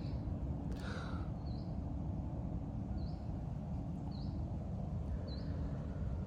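A small bird repeating a short high chirp four times, about once every second, with one harsher call about a second in. All of it sits over a steady low rumble.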